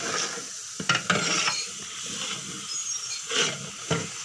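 Long metal ladle stirring curry in a large aluminium pot, scraping along the pot in several short strokes, with a couple about a second in and more near the end.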